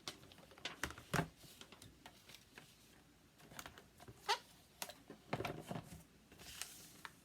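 Cardstock and paper-crafting tools being handled on a work table: scattered light taps and clicks, with a brief paper slide near the end.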